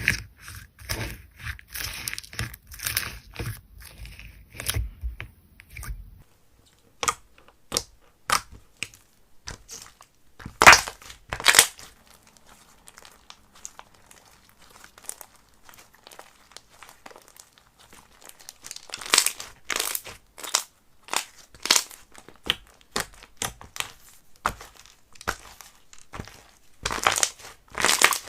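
Slime being squeezed and stretched by hand, crackling and popping in sharp little clicks. The crackles come thick and fast with soft squishing for about the first six seconds, then thin out to scattered pops with louder bunches around ten, nineteen and twenty-seven seconds in.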